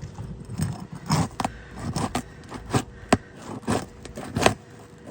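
Asphalt roof shingles being lifted and handled during removal: a run of irregular sharp clicks and scrapes, about eight in five seconds.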